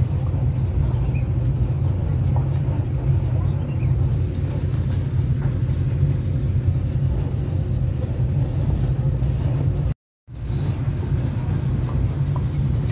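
Steady low rumble and drone of a tourist train running along the track, heard from inside an open-windowed passenger carriage. The sound cuts out for a split second about ten seconds in.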